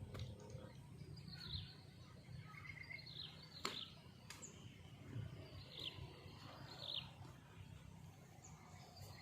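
Birds chirping: short, falling chirps every second or two over a faint low hum. A couple of sharp clicks about a third of the way in.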